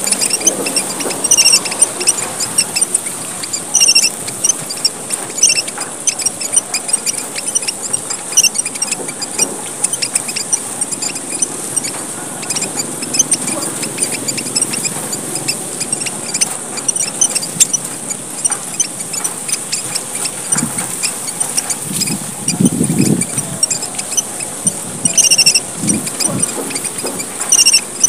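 A flock of emprit merah papua, the small red finches of Papua, chattering busily: many rapid, thin, high-pitched chirps over a steady high hiss. A brief low sound comes about three-quarters of the way through.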